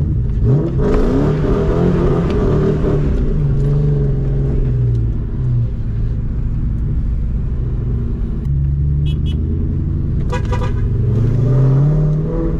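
2004 Ford Mustang GT's 4.6-litre V8 through an off-road X-pipe and Borla S-Type mufflers, pulling away under throttle: the exhaust note climbs about half a second in, drops back at upshifts, runs steady, then climbs again near the end.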